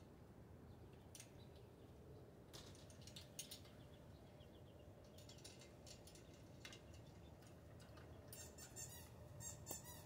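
Near silence: faint outdoor background with scattered faint clicks, and a quick run of faint high bird chirps near the end.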